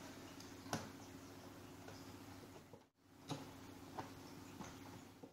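Hand screwdriver driving a bolt into an office chair's armrest: a few faint light clicks, the sharpest a little under a second in, over a steady low hum.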